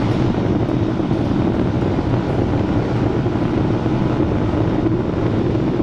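Motorcycle engine running steadily at highway speed, around 100 km/h, with wind and road noise rushing over the microphone.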